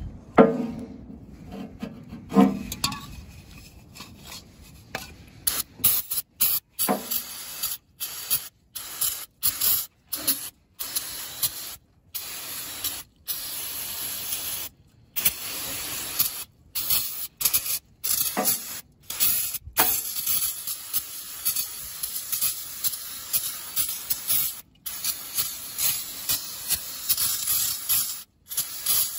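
Aerosol can of brake cleaner spraying in many short bursts, a hiss broken by brief stops between them.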